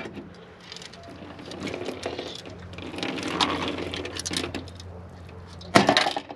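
An aluminium soda can torn open by airsoft BBs being handled: the thin metal crinkles and soda pours and splashes out of the holes onto a plastic table. A sharp knock near the end.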